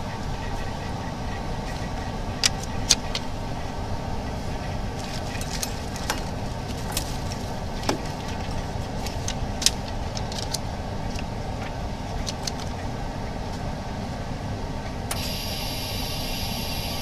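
Screen laminating machine running through a laminating cycle: a steady low machine hum with scattered light clicks, joined by a steady hiss about two seconds before the end.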